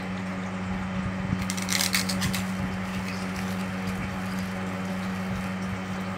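Gritty crunching and rustling as hands work damp soil in a steel bowl, strongest between about one and a half and two and a half seconds in, over a steady low hum.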